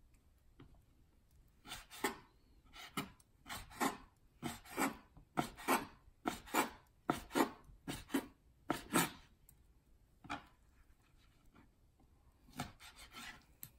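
Kitchen knife slicing raw squid into strips on a plastic cutting board: about nine cuts in a steady row, each ending in a knock of the blade on the board, then a pause, one more cut, and a quick few cuts near the end.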